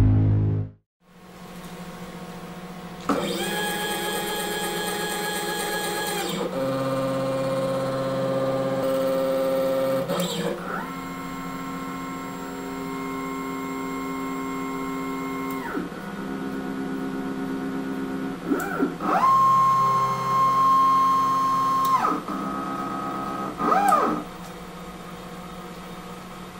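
Stepper motors of a 3-axis CNC portal machine whining as the axes move to home: a string of moves, each held at its own steady pitch for a few seconds and starting and stopping abruptly, over a constant low hum. The tail of an electronic jingle opens the stretch.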